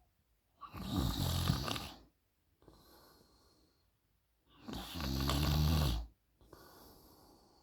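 A sleeping woman snoring: two loud snores about four seconds apart, each lasting a second and a half, with quieter breaths between.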